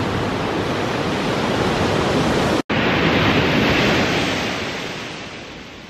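Surf washing onto a sandy beach, with wind rumbling on the microphone. The sound breaks off for an instant about two and a half seconds in, then fades toward the end.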